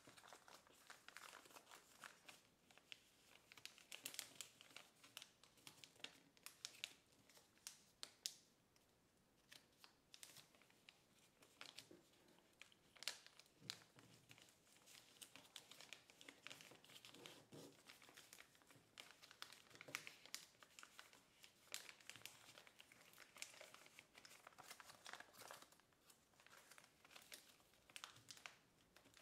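Sheet of kraft paper being handled and folded: faint, irregular rustling and crinkling, with short crackles as flaps are lifted and creases pressed.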